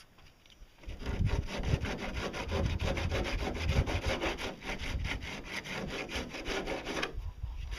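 Hand sanding of a fiberglass pontoon hull with a small sanding block: rapid back-and-forth rasping strokes that start about a second in and stop near the end.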